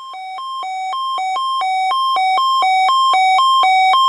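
Sangean CL-100 weather radio's alert alarm going off for the NOAA Weather Radio weekly test, woken from silent standby: loud, rapid beeps alternating between a high and a low tone several times a second, growing steadily louder.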